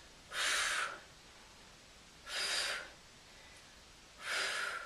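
A woman breathing out sharply through the mouth three times, about two seconds apart, a short breathy puff with each lift of a front raise.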